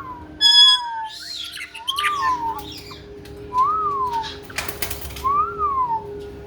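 Caique bathing: about four clear whistles that rise and fall, with wings flapping and splashing in the bath water, loudest in a short burst about five seconds in.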